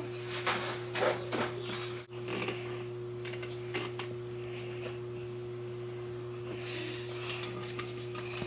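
A lemon being squeezed by hand in a plastic citrus juicer: irregular scraping and crackling as the juicer is pressed and twisted, busiest near the start and again near the end, over a steady electrical hum.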